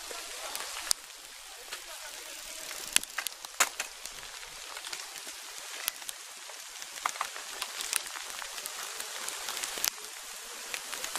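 Outdoor ambience: a steady hiss with scattered sharp crackles and clicks, the loudest two coming about three seconds in.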